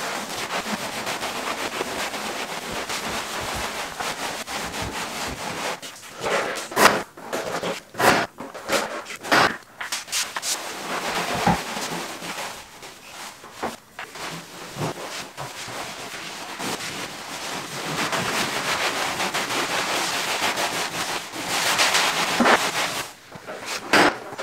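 Rubbing and scraping of a long-handled broom brushing down walls and ceiling corners: a steady brushing hiss at first, broken by irregular knocks and strokes in the middle, then steady brushing again toward the end.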